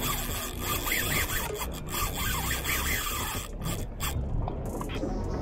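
Scratchy rubbing noise on a chest-mounted camera's microphone, over a steady low rumble.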